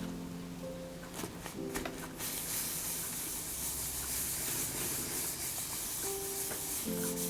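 Wax being rubbed onto a leather and mulberry-paper book cover: a few light taps, then a steady dry rubbing hiss for about five seconds, over soft background music with held notes.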